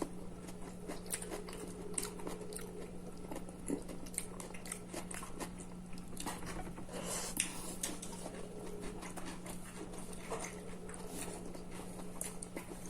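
Close-up chewing and biting while eating by hand, with scattered small wet clicks and crunches over a steady low hum.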